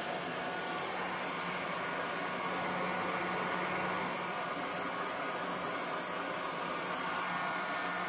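Heat gun blowing a steady rush of air with a low motor hum, worked over freshly poured epoxy resin.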